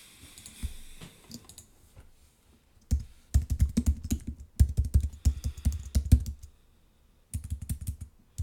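Computer keyboard typing: quick runs of keystrokes as a web address is typed, starting about three seconds in, with a short pause near seven seconds before the typing resumes.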